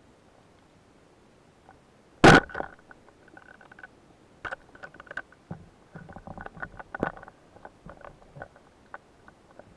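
Speargun fired underwater: one loud sharp crack about two seconds in, followed by a scattered run of softer clicks and knocks as the shaft, with several fish skewered on it, rattles and the fish struggle.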